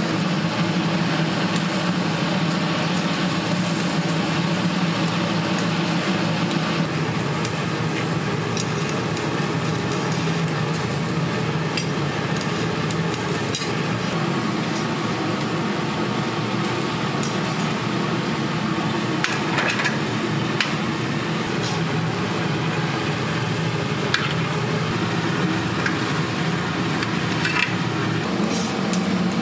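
Food sizzling as it cooks, with scattered light clicks and clinks of metal utensils over a steady low hum.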